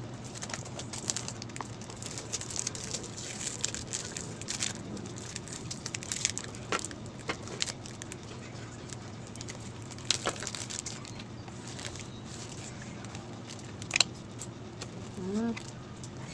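Cardboard shipping box being opened by hand: packing tape and cardboard flaps tearing, rustling and crinkling, with scattered clicks and crackles over a steady low hum. A brief rising squeak comes near the end.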